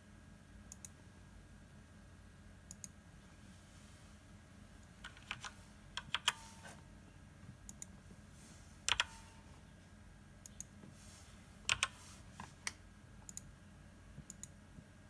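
Computer keyboard keystrokes and mouse clicks, scattered singly and in short bursts of a few presses, over a faint steady electrical hum.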